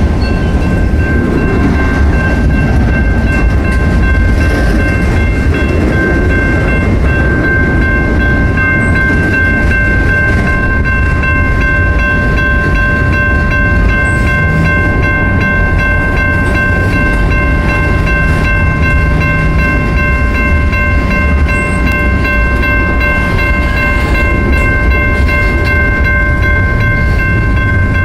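Freight train rolling past with a loud, steady low rumble of wheels on rail. Over it sits a steady high-pitched ringing made of several tones together.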